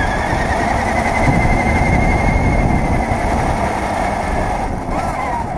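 RC monster truck's motor and drivetrain running, a faint high whine over a dense rumble of tyres and vibration on asphalt, heard from a camera mounted on the truck. The whine rises slightly at first, and the sound eases off a little near the end.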